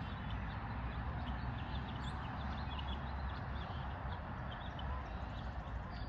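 Outdoor pond-side ambience: a steady low rumble with many short, high chirps of small birds scattered through it.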